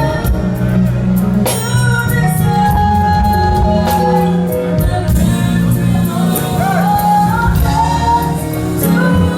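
Live gospel band music with singing: sustained bass notes and drum and cymbal hits under a wavering sung melody. It is played as a sound check.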